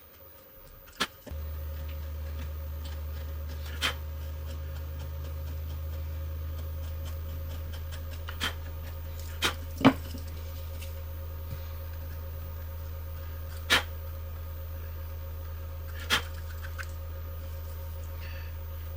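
Small wood chisel of a Swiss Army Knife cutting into a wooden spoon's bowl: about seven sharp, short clicks at irregular intervals. A steady low hum sets in about a second in and runs underneath.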